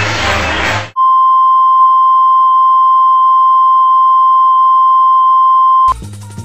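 Steady broadcast test tone, the kind played under colour bars, held for about five seconds. Music cuts off just before it starts, and new music with sound effects begins as it stops.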